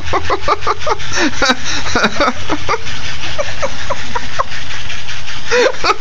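A woman laughing hard: short breathy calls several times a second that trail off about four seconds in, with one more near the end.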